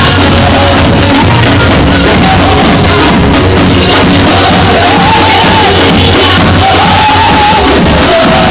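Church choir and band performing a loud, upbeat praise song for dancing: singing voices over a steady heavy bass line.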